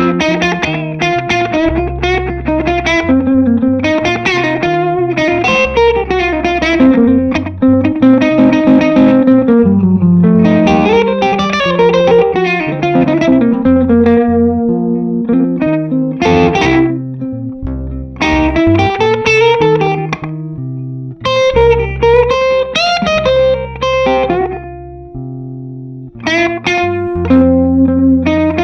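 1961 Gibson ES-335 electric guitar with PAF humbuckers playing British-blues lead lines through an overdrive pedal with a short, quick delay, with steady low bass notes underneath.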